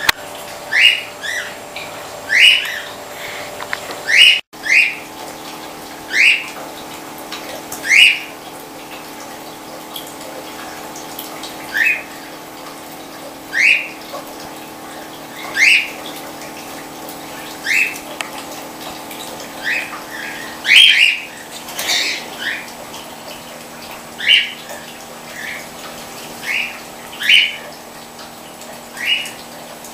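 Caged birds giving short, sharp squawking calls, one every second or two, over the steady hum of the aviary's running water pumps.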